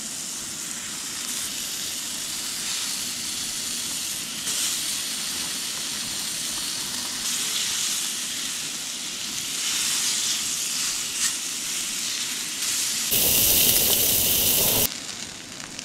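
Food sizzling and frying in a pan over the cooking fire: a steady hiss that swells and eases, with a louder, fuller burst of sizzle for about two seconds near the end.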